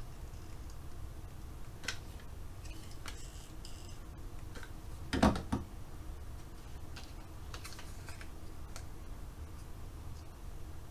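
Light clicks, taps and rustles of card and paper being handled and pressed together, with one louder thump a little over five seconds in.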